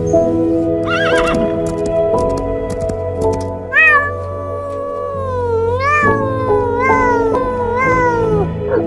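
An animal's repeated cries over background music: a short wavering call about a second in, then four drawn-out calls from about four seconds on, each rising briefly and then sliding down in pitch.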